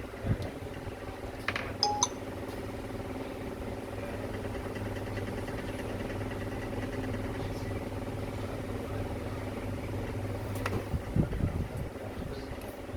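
Steady machine hum with a few small clicks and clinks of tools or parts on a workbench.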